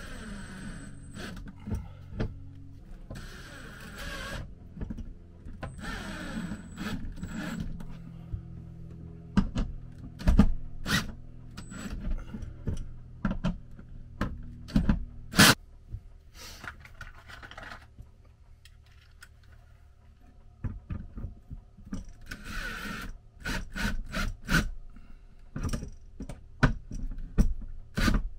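Cordless drill driving lag screws through a metal TV wall-mount bracket into a wood backer, running in short bursts. Sharp knocks and clicks from the bracket and screws being handled come between the runs, the loudest about ten seconds in and again about fifteen seconds in.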